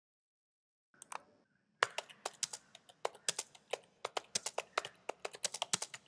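Computer keyboard keys typed quickly, a run of sharp clicks at about five a second starting about two seconds in, after a couple of single clicks about a second in.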